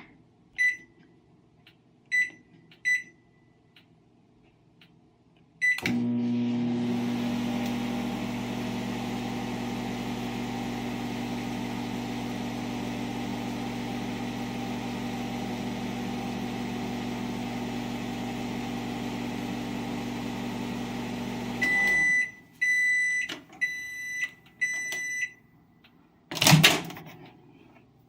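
Microwave oven keypad beeping three times as the time is set, then the oven starting with a click and running with a steady hum for about fifteen seconds. The hum stops with a string of end-of-cycle beeps, followed by a loud clunk near the end.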